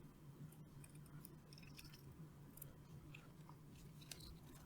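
Near silence: room tone with a faint steady low hum and a few faint, scattered small clicks.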